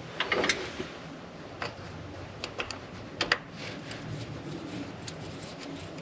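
Scattered metal clicks and clinks of hand tools and bolts while the cam retaining plate is bolted onto a small-block Chevy engine block. There are a few sharp ticks near the start, single clicks about one and a half seconds and two and a half seconds in, and a louder double clink about three seconds in.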